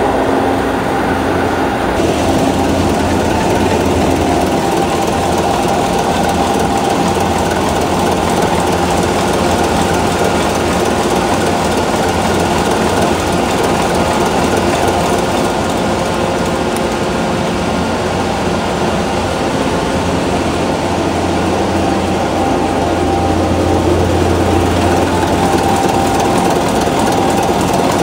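Niigata marine diesel engines of a tugboat running loud and steady in the engine room, a dense mechanical din that drowns out conversation, swelling slightly near the end.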